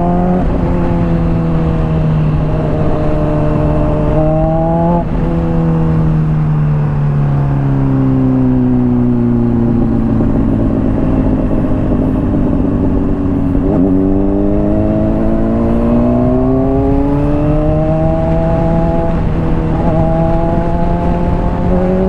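Honda CBR600RR inline-four engine through a Hotbodies Stinger slip-on exhaust, riding in traffic: the revs climb, drop at a shift about five seconds in, then fall away for several seconds as the rider eases off. Around fourteen seconds in the engine picks up again and climbs before holding fairly steady.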